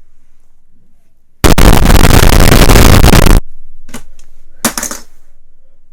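A loud, harsh burst of noise about two seconds long, starting about a second and a half in and cutting off suddenly, followed by two short crackles.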